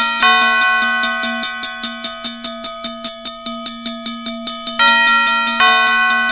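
Temple bells ringing together: one bell struck in a fast, even run of about five strikes a second, while a second bell with different tones is struck about a quarter second in and twice near the end, its ring carrying on between strikes.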